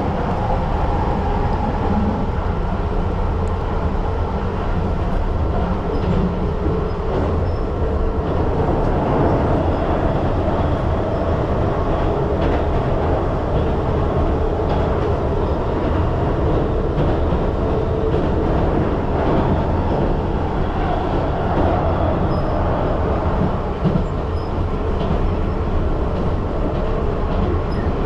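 Keihan Line commuter train running between stations, heard from inside the carriage: a steady rumble of wheels on the rails and running noise.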